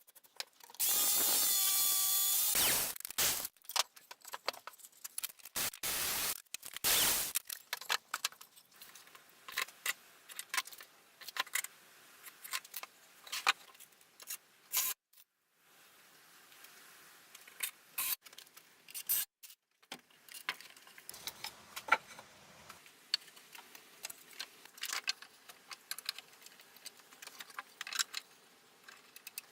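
Hand-work sounds while building timber steps: a loud steady burst of about two seconds near the start, then many scattered clicks, taps and knocks of tools and wood being handled.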